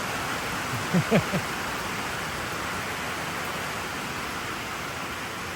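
Heavy rain coming down hard, a steady hiss throughout. About a second in, a short vocal sound from a person rises briefly above the rain.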